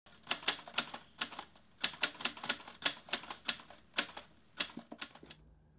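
Typewriter keys clacking in an uneven run of keystrokes that stops a little after five seconds in.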